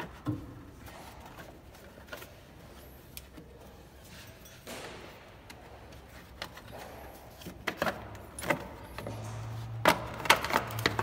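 Hands handling and pulling loose parts in a car's engine bay: scattered clicks and light rattles of plastic and metal, with a short rustle about halfway and a busier run of clicks near the end.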